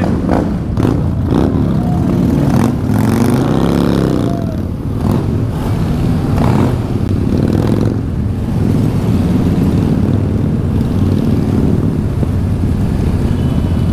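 Several motorcycles running together in a group ride. About three seconds in, one engine revs up and back down.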